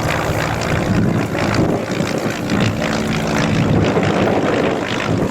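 North American Navion light aircraft's piston engine and propeller running steadily, a smooth, comfortable-sounding drone with slight rises and falls in pitch.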